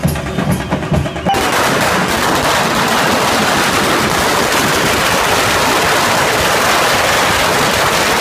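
Drumbeats for about the first second, then a string of firecrackers going off in a rapid, unbroken crackle of reports that carries on for several seconds.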